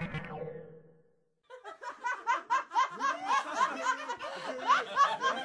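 Background music fades out, and after a short gap a group of young children break into laughing and calling out together, many short high voices overlapping.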